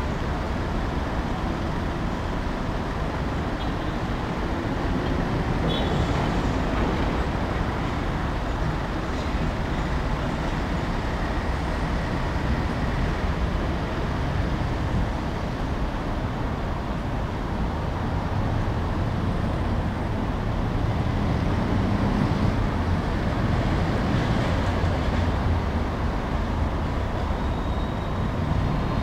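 Steady road traffic noise from the engines and tyres of a minibus, taxis and cars moving through a street.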